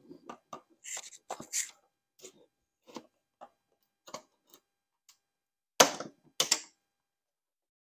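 Scattered small clicks and scrapes of a metal pick working under a rear window trim molding, probing for the retaining clips, with two sharper clicks about six seconds in.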